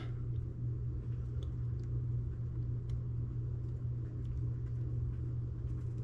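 Steady low hum of room tone, with a few faint ticks from thin wire ends being twisted together by hand.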